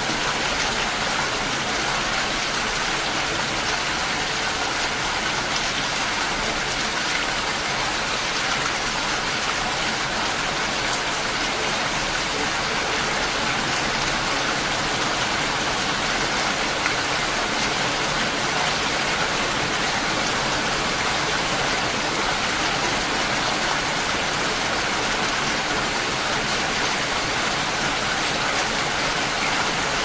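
Steady rain falling, an even hiss with no single drops or other sounds standing out.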